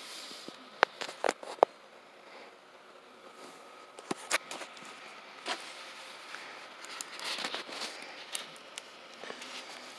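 Foil balloon crinkling and crackling as hands turn it over, with a few sharp clicks in the first two seconds and a denser run of crinkles near the end.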